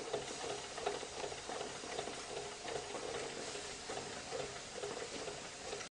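Märklin 16051 live-steam stationary model engine running, with a steady steam hiss and a soft rhythmic beat from the cylinders.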